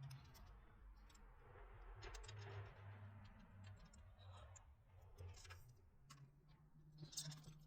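Near silence with faint, scattered clicks and rubbing from a gravel-bike tire and inner tube being worked off the rim by hand.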